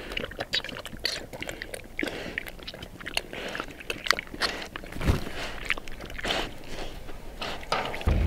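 Twelve-week-old pigs eating from a feed bowl close by, with dense, irregular crunching and chewing.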